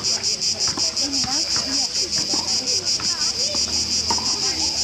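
Cicadas singing in the trees: a loud, steady, rapidly pulsing high-pitched buzz.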